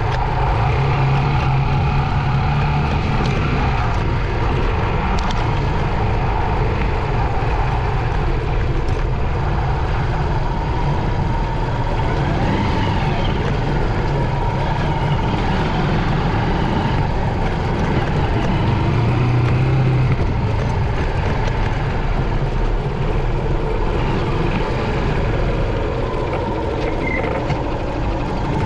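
Honda CG 125's single-cylinder four-stroke engine running steadily under way, its low note getting louder briefly near the start and again about two-thirds of the way through.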